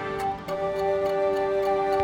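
Background music: sustained held notes over a soft ticking beat.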